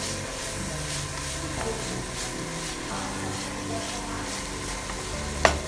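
Masala-coated mole crabs sizzling as they fry in a nonstick pan, stirred with a wooden spatula in regular strokes. There is a single sharp clink near the end.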